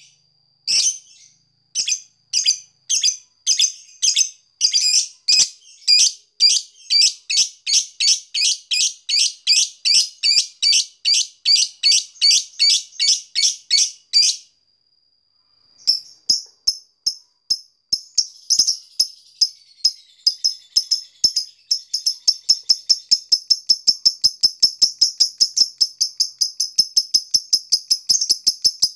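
Fischer's lovebird calling in a long series of sharp, high chirps that quicken steadily, breaking off for a moment about fourteen seconds in, then resuming as a fast, even ticking run of about four to five notes a second: the chatter lovebird keepers call 'ngetik'.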